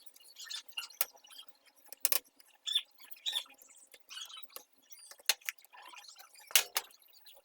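Light scattered clicks, taps and scrapes of small hard parts being handled, with a few sharper clicks, the loudest about two seconds in and about six and a half seconds in.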